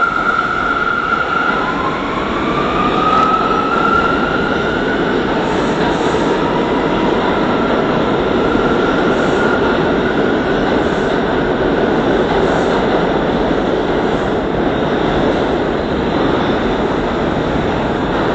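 R179 subway train pulling out of the station. The traction motors' electric whine rises in pitch over the first few seconds, over a steady loud rumble of wheels on rail as the train runs off into the tunnel.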